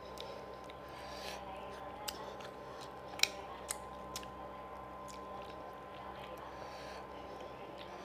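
A person eating fish curry and rice by hand: chewing and mouth smacks, with fingers mixing the rice and curry on the plate. A few sharp clicks come between two and four seconds in, the loudest about three seconds in, over a steady faint hum.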